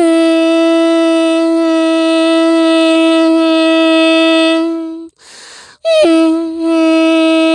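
A man's voice imitating a diesel train engine's horn: two long, steady blasts at one pitch, each starting with a brief higher note that drops, with a quick breath in between about five seconds in.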